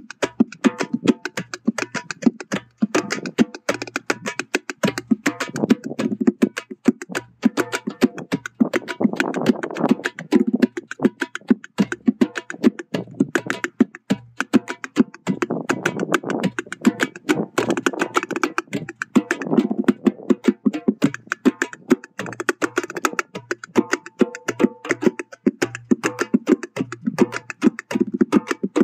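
Hand drumming: bare hands striking a goblet-shaped hand drum in a fast, continuous rhythm of many strokes a second.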